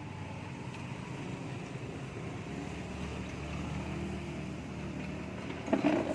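A steady low mechanical hum like a small motor running, with a short louder burst of noise just before the end.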